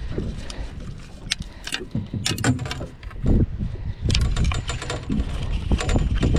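Scattered clicks and rattles from a landing net and fishing rod being handled as a small fish is lifted aboard, over a low rumble of wind on the microphone.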